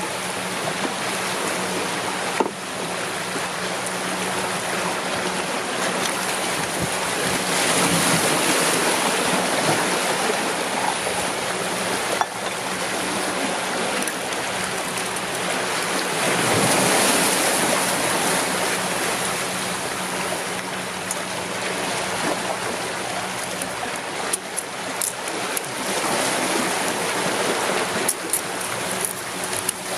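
Sea surf washing over a rocky shore, a steady rush that swells and eases, with a few short sharp clicks.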